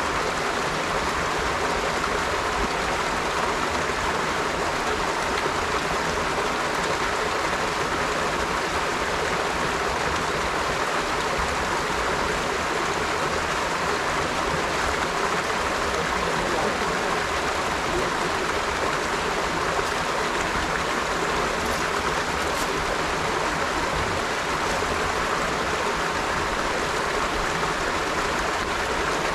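River water flowing steadily over rocks, an even rushing with no breaks.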